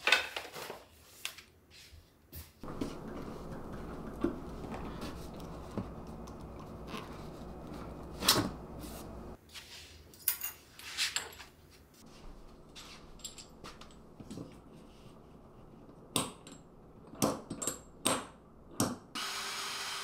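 Handling sounds: small plastic hooks clicking and knocking on a wooden tabletop and cloth rustling as an apron is hung on a chair, with a run of sharp knocks a few seconds before the end. Near the end a DeWalt cordless drill starts running.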